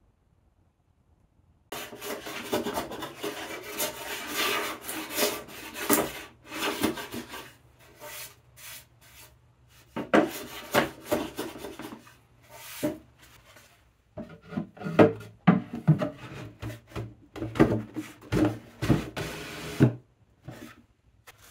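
Metal bench plane taking repeated rasping strokes along the edge of a dovetailed wooden tray. Later come sharper wooden knocks and rubbing as the tray is set into the chest for fitting.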